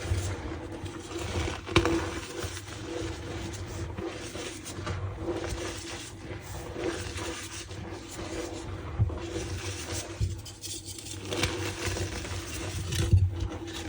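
Reformed gym chalk being crushed and rubbed by hand: a continuous squeaky, scraping crunch with scattered sharper snaps, the loudest about two seconds in and near the end.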